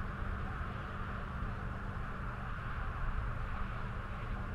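Wind buffeting the microphone in an irregular low rumble, over a steady rushing hiss and a faint steady hum.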